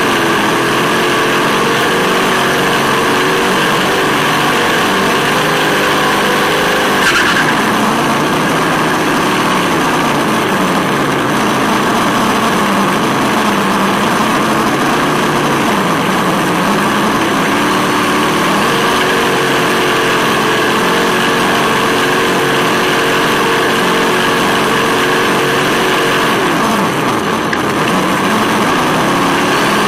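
Simulated turbo V8 engine sound from a Sense Hobby ESS-One sound unit on an RC buggy, its pitch rising and falling with the throttle, held high for a stretch and dropping off near the end. A brief sharp crack comes about seven seconds in.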